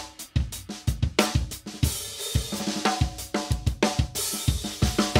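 Drum kit played in a steady groove: snare, bass drum and hi-hat or cymbal strokes, with a cymbal wash about two seconds in and the drums ringing between hits in the second half.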